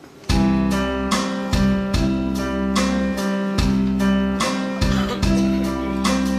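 Music starts abruptly about a third of a second in: a tuned cowbell performance over a guitar-led accompaniment with a steady low bass, its notes struck on a regular beat of about two a second.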